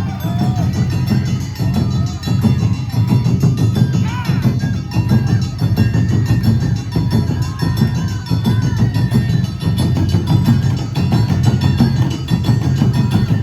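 Awa Odori festival band playing: taiko drums beating a steady, driving rhythm with the ringing metal of a hand gong and other percussion over it.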